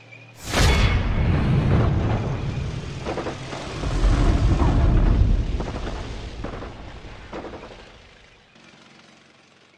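Intro battle sound effects: a sudden explosion about half a second in, then rumbling blasts and gunfire that swell again around four to five seconds and fade away.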